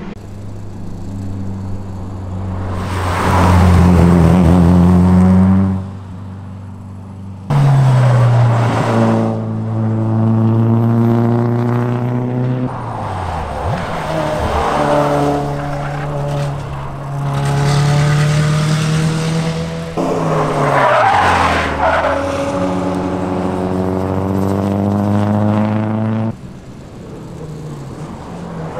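Race car's engine running hard on a track lap, its note rising and falling as the car accelerates, lifts and brakes through the corners. The engine goes suddenly quieter about six seconds in, comes back hard a second and a half later, and drops away again near the end.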